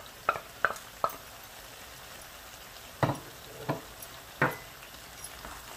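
Spiced pork pickle mixture sizzling in a frying pan as it is stirred with a spoon, which knocks and scrapes against the pan several times.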